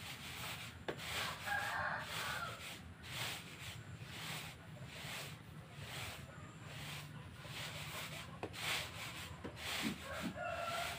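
Rhythmic rasping swishes, roughly one every half second, of dry rice paddy being scooped and poured into a sack. A rooster crows near the end.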